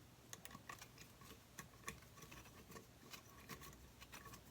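Near silence with faint, irregular small clicks and taps from handling and wiping a sink drain stopper with a paper towel.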